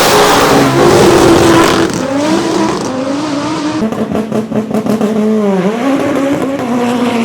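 Hill-climb race car's engine at full throttle, loudest for the first two seconds, then dropping in pitch at two upshifts and climbing again. About five and a half seconds in, the revs dip briefly and swing back up before the car pulls on steadily.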